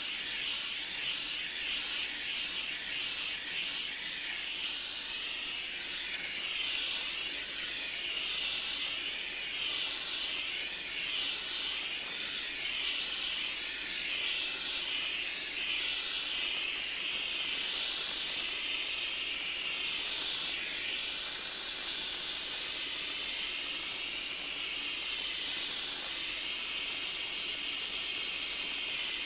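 Gas torch flame hissing steadily, heating an aluminum A/C radiator for brazing with aluminum brazing rod.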